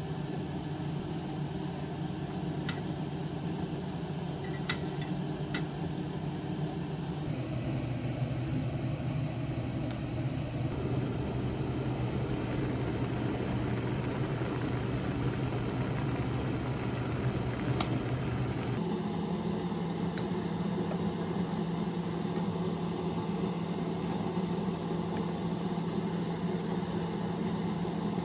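A steady low mechanical hum whose pitch shifts twice, with a few light clicks in the first several seconds.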